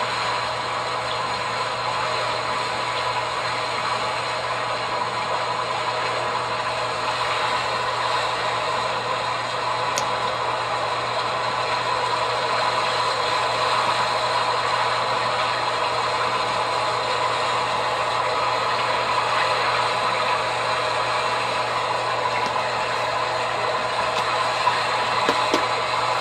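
A steady mechanical drone with a constant low hum underneath, like a motor running at an unchanging speed.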